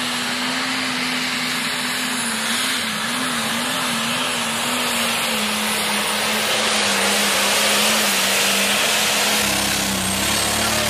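Diesel pulling tractor at full throttle, dragging the weight-transfer sled down the track. Loud, with a steady engine note that wavers about three seconds in and sinks lower through the second half as the engine is pulled down under the sled's load.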